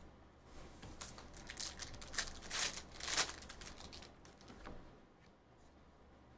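A foil trading card pack being crinkled and torn open, with cards rustling and sliding against each other, in a series of short scrapes that peak in the middle.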